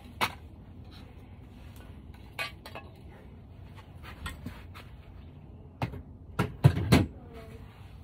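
Scattered knocks and clicks of tools and doorbell parts being handled, with a quick run of several louder knocks near the end.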